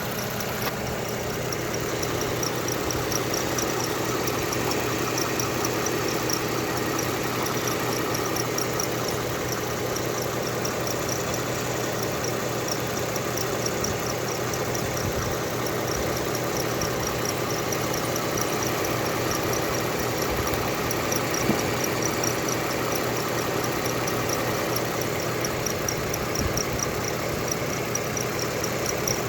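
Toyota 2GR-FE 3.5-litre V6 idling steadily, with a rapid, evenly repeating high-pitched chirp over the engine note: an extraneous noise from the engine.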